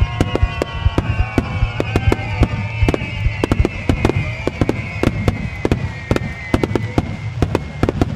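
Starmine fireworks display: shells bursting in rapid succession, many sharp bangs and crackles over a low rumble, with a sustained high tone that slowly falls in pitch and fades near the end.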